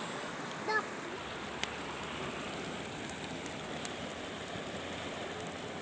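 Steady rush of river water, with a few faint snaps from a small twig fire burning under a banana-leaf bundle. A brief chirp-like sound comes about a second in.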